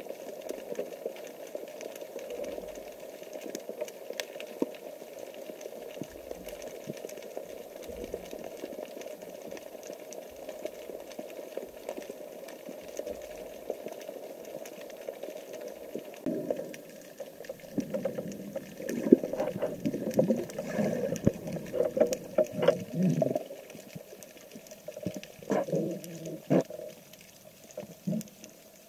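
Underwater water noise heard through a camera's waterproof housing: a steady low rush, then from about sixteen seconds in irregular bubbling, gurgling bursts of water that come and go until near the end.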